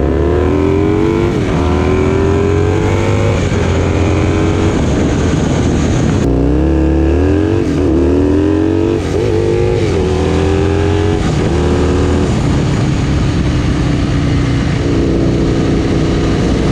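Motorcycle engine accelerating through the gears, its pitch climbing and dropping back at each upshift several times, then running at a steady pitch over the last few seconds.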